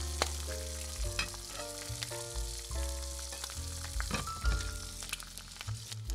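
Hot oil sizzling steadily as battered shrimp tempura deep-fry in a miniature cast-iron skillet, with a few sharp clicks of a small slotted metal turner against the pan. Background music with a melody and bass plays over it.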